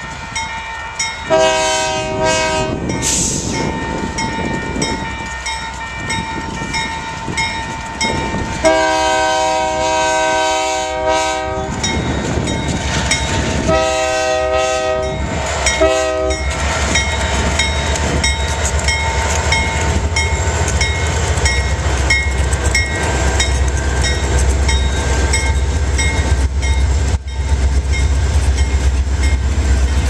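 Diesel freight locomotive horn sounding a multi-note chord in four blasts for a grade crossing, the second the longest and the last brief, over the steady dinging of the crossing bell. Past the halfway point the deep rumble of the lead locomotives' diesel engines grows loud as they pass close by.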